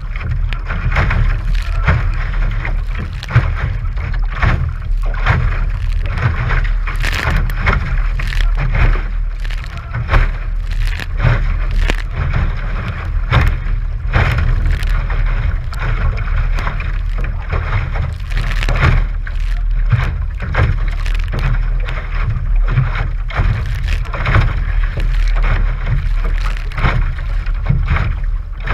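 The hull of a 1971 AMF Sunfish sailboat underway through choppy water, with waves slapping and spray splashing irregularly against it, under a steady low rumble of wind buffeting the microphone.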